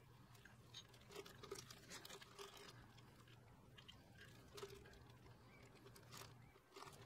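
Faint crinkling of clear plastic bags with scattered light clicks, as gloved hands handle a spindle bearing inside them, over a faint low hum.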